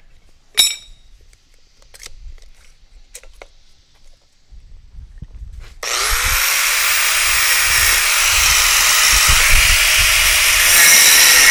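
A sharp clank about half a second in and a few light taps. Then, about six seconds in, a power tool starts suddenly, its pitch rising as it spins up, and runs loud and steady as it cuts a piece of steel plate. It cuts off near the end.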